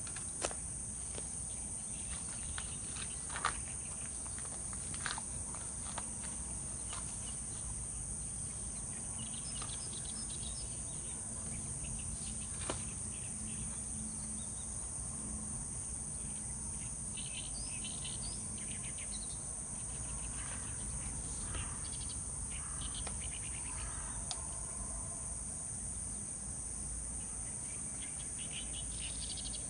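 Steady high-pitched insect chorus, with short chirps now and then and a few small clicks over a low rumble.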